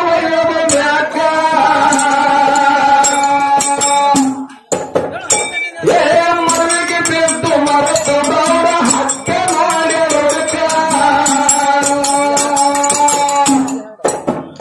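A male voice sings a Kannada devotional folk song (dollina pada) in long, drawn-out phrases, over small metal hand cymbals and rattle-like percussion. The singing breaks off briefly about four seconds in and again near the end.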